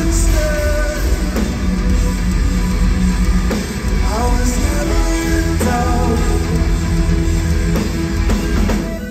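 Live progressive metal band playing loud: electric guitar, bass, drums and keyboards under a sung vocal line, heard from the crowd. At the very end the heavy low end drops away.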